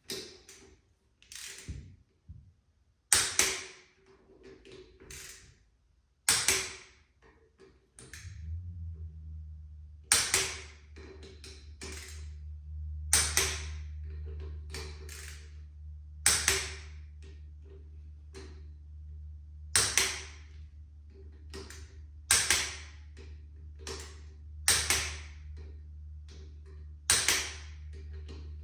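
Hand tools working on motorcycle wheel hardware: a sharp click about every three seconds with lighter ticks between. A steady low hum comes on about eight seconds in.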